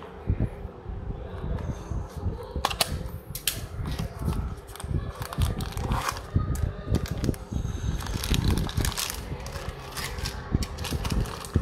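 Small cardboard toy box being opened and a die-cast toy car in a clear plastic bag slid out and handled: repeated clicks and taps of cardboard and the car, with close handling thumps. From about eight seconds in, the plastic bag crinkles.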